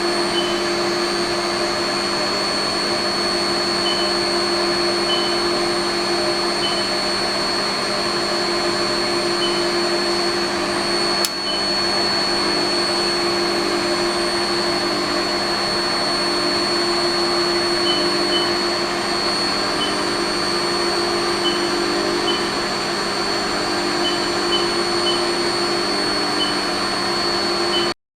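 LeBlond Regal engine lathe running with no load: a steady mechanical hum with a high-pitched whine, one brief click about a third of the way in, cutting off suddenly near the end.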